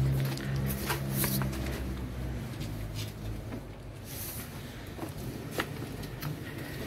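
Footsteps on stone stairs: scattered light scuffs and taps as people climb the steps, about one every second. A low steady hum underneath fades out about two and a half seconds in.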